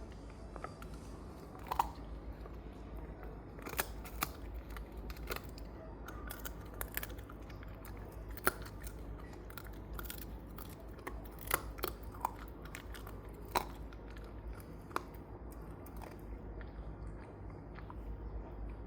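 Shiba Inu gnawing a bone: irregular sharp cracks and crunches of teeth on bone, over a steady low hum.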